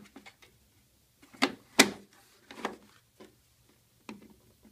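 Hard plastic knocks and clicks from the Sicce Ecopond pond filter's lid and extension pipe being handled and pushed together, about five separate knocks with the loudest about two seconds in.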